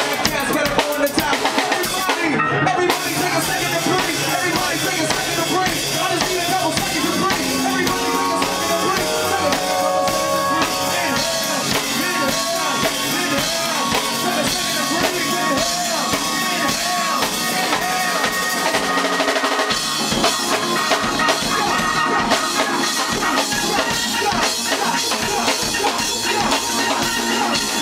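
Live hip hop band performing a song: drum kit beat with keyboard and bass, and a rapper's vocal over it. The bottom end thins out about twenty seconds in.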